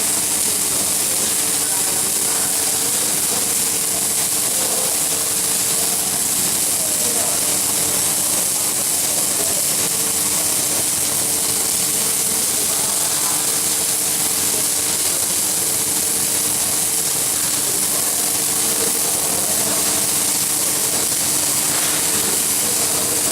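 Steady hiss of an electric welding arc, with an even hum of machinery beneath it.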